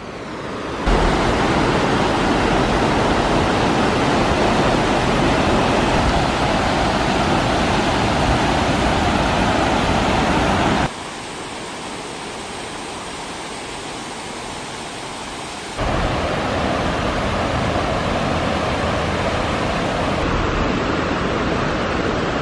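Fast stream water rushing over and past a check dam, a loud steady rush: the stream is running high. The rush drops abruptly to a quieter level for about five seconds around the middle, then returns.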